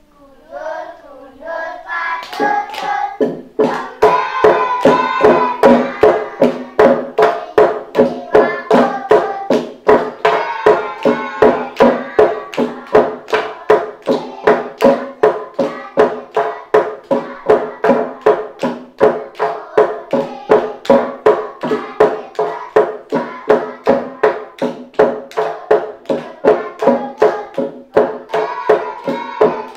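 Gejog lesung: wooden pestles striking a hollowed wooden rice-pounding trough in an interlocking rhythm, about two strong knocks a second with lighter ones between, each knock ringing with the trough's pitch. It builds up over the first few seconds, with voices singing over the knocking.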